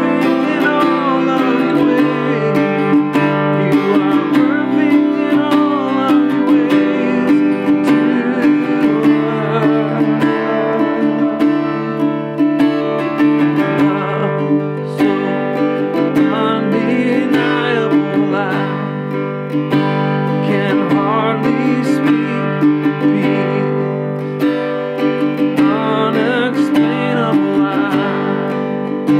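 Acoustic guitar strummed in one steady repeating pattern through the chords of a song.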